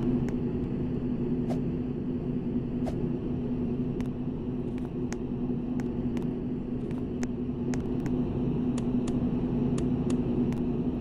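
KDK D15ZM ceiling fan running with a steady motor hum and low rumble, with scattered irregular clicks over it.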